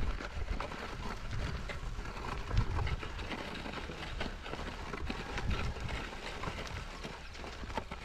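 Hooves of a pair of Hallikar bullocks stepping on freshly ploughed soil as they pull a plough, with the plough dragging through the earth and a low rumble throughout. A louder thump comes about two and a half seconds in.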